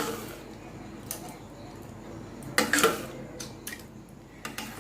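A spatula stirring a thick palm-pulp and milk mixture in a kadai, with scraping against the pan and a few sharp clicks. A louder scrape comes just past the middle.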